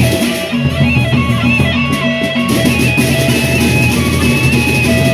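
Sasak gendang beleq ensemble playing: large double-headed barrel drums beaten in a steady rhythm under a held melody line. The high shimmer above the drums thins out about half a second in and comes back near the three-second mark.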